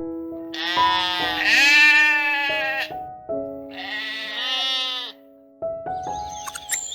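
Sheep bleating, two long calls one after the other, over background music.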